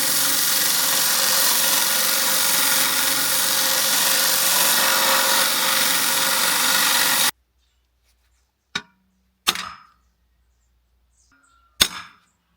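A power tool runs steadily for about seven seconds, then stops suddenly. Three sharp knocks follow, the last two louder.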